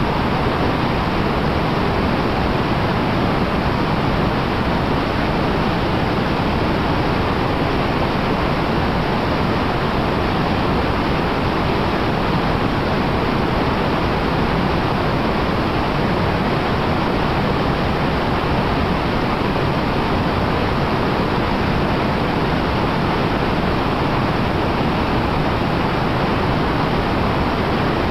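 River whitewater rushing steadily: the Wolf River running at high water, a constant even roar with no breaks.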